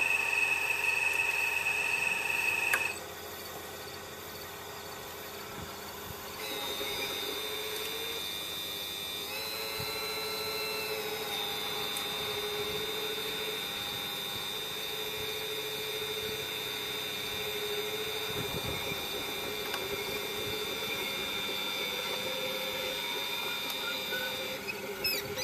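Whine of a 1/12-scale Wittco Cat 345D RC excavator's motors and hydraulic pump as it is driven on its tracks. The whine is steady, with several high tones held at once, and it shifts in pitch and loudness a few times as the controls change.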